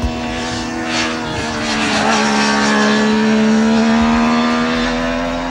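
Triumph Daytona 675's inline three-cylinder engine running at high revs on track, a steady drone whose pitch dips slightly about two seconds in and then climbs slowly.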